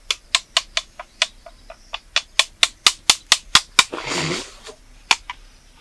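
Sharp percussive clicks or claps in a steady rhythm, about four to five a second, with a short hoarse vocal cry about four seconds in.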